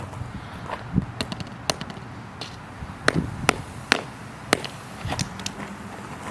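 Shorted two-cell hard-case LiPo battery burning and crackling, with about ten sharp, irregular pops, the loudest clustered between about three and four and a half seconds in.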